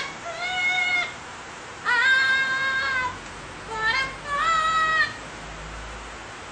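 A parrot singing a short tune of four drawn-out, pitched notes, several sliding upward as they begin.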